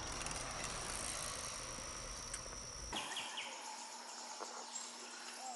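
Insects singing steadily on one high note over a low rumble; both stop abruptly about three seconds in, leaving a quieter outdoor background.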